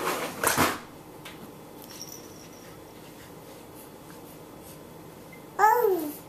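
A short breathy rustle at the start, then about five and a half seconds in a young baby gives one short coo that slides down in pitch.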